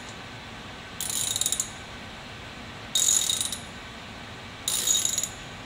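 Ratchet wrench with a socket clicking in three separate runs about two seconds apart, each about half a second of rapid clicks, as the ratchet is swung back between strokes while driving in the cover screws of a deluge valve.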